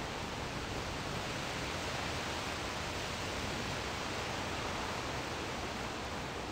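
Steady, even rushing noise of outdoor ambience with no distinct events.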